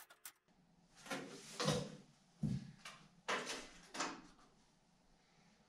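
Steel tape measure being worked across a window rough opening: the blade sliding out and retracting, as five or so short sliding rattles and clacks.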